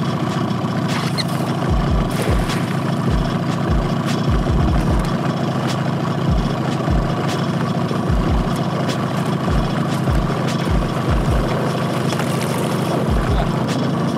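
Two-stroke Yamaha outboard motor idling steadily, with irregular low thumps.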